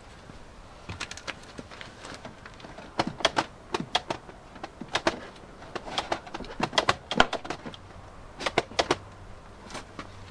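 Plastic retaining clips of a Land Rover Discovery 2 door card popping and snapping as the panel is prised off the door: a run of sharp plastic clicks and cracks in irregular clusters.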